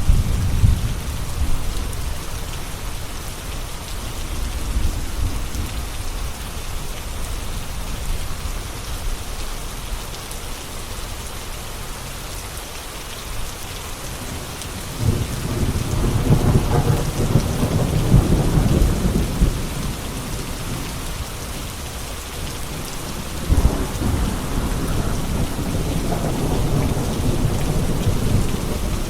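Steady rain with thunder rumbling: a short roll at the start, then two long low rolls from about halfway through.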